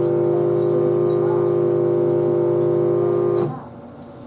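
A steady electric hum from a running appliance or small motor, made of several even tones, that cuts off suddenly about three and a half seconds in.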